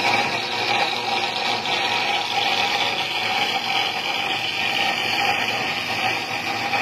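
Datyso 400B automatic-feed, burr-free metal cutting saw running with a steady, even machine whir.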